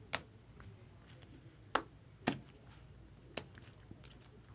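Four sharp, isolated clicks and taps, a second or so apart, from hard plastic trading-card holders being handled on the table.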